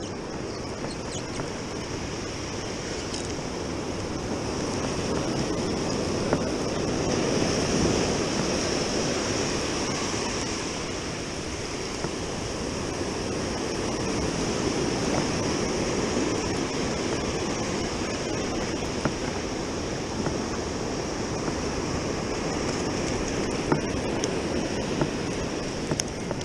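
Ocean surf breaking and washing up the sand around the listener, a steady rush that swells and eases.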